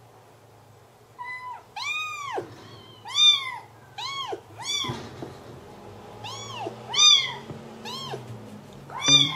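A young kitten meowing over and over: about ten short, high-pitched cries, each rising then falling in pitch, with a brief pause around the middle. They are the cries of a frightened kitten being handled.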